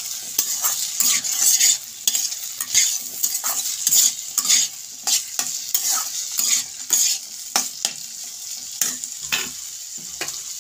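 Metal spatula stirring and scraping chopped vegetables and red lentils around a non-stick wok, quick repeated scrapes over the sizzle of frying oil.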